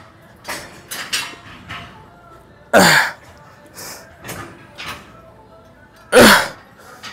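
A man grunting hard with effort on pec deck flye reps: two loud grunts, each falling in pitch, about three and a half seconds apart, with softer short sounds between.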